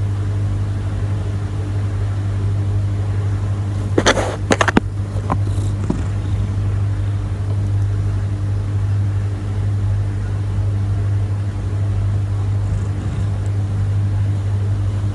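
A steady low hum runs throughout, with a quick cluster of sharp knocks or taps about four seconds in and one more a second later.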